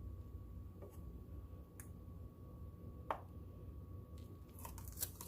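A few faint, sharp clicks and taps from handling painting supplies, one about three seconds in the loudest, with a quick cluster of them near the end, over a low steady hum.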